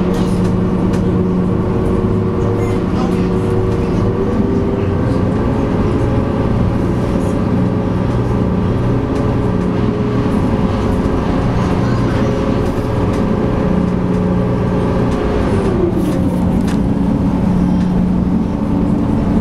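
SeaBus passenger ferry's engines running steadily, a loud drone with several steady hum tones. The pitch of one tone rises slightly about four seconds in and drops about sixteen seconds in as the engine speed changes.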